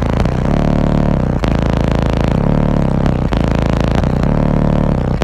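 Bass-heavy music played loud through a car audio system of five Resilient Sounds Platinum 12-inch subwoofers, a repeating bass phrase with a sharp drum hit about every two seconds.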